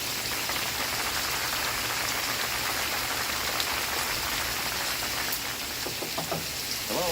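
Steady rain falling on a surface, an even hiss of drops. A faint voice comes in near the end.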